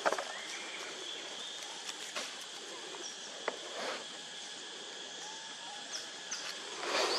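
Outdoor forest ambience: a steady high insect drone, a few short bird chirps, and scattered brief rustles and taps, the loudest rustles near the start and near the end.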